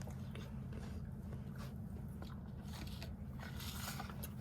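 A person taking a bite of a dessert and chewing it, with small wet clicks and crunches, a busier patch of chewing about three and a half seconds in, over a steady low hum.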